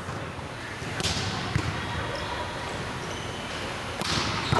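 Volleyball being struck by hand: a few sharp smacks echoing in a large gym hall, one about a second in, a duller one shortly after, and two close together near the end as a ball is hit toward a player.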